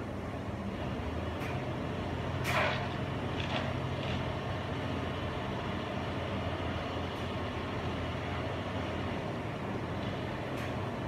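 Heavy diesel engine running steadily at low revs, with a few short knocks or clanks, the loudest about two and a half seconds in.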